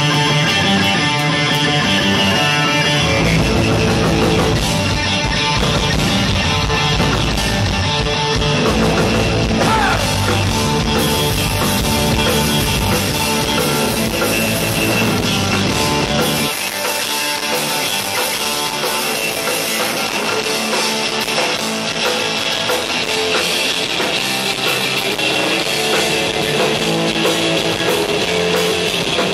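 Live punk rock band playing loud electric guitar, bass guitar and drums. About halfway through, the deep low end drops out and the guitars carry on.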